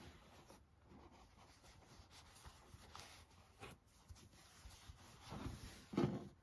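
Faint rubbing and rustling of fingers and a yarn needle on a crocheted yarn toy, with a few soft ticks and a louder handling sound near the end.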